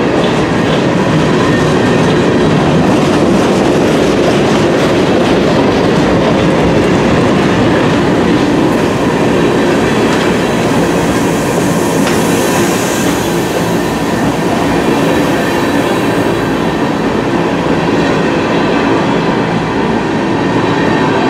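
Loaded freight train of open-top coal hopper cars rolling past close by: a steady, loud rumble of steel wheels on the rails. A brief higher hiss comes about halfway through.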